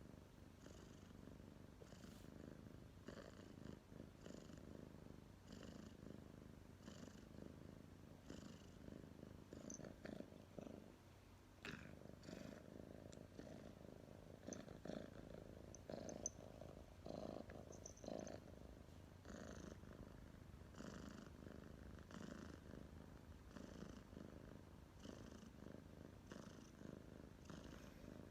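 A domestic cat purring: a faint, steady low rumble that swells and eases with each breath, about every second and a half.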